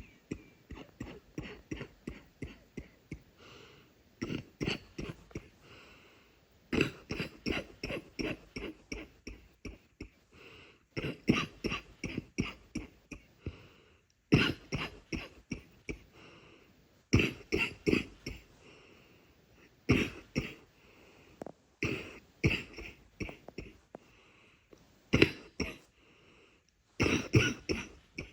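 A person coughing in repeated fits, each a quick run of several short coughs, with a pause of a second or so between fits. The coughs are congested.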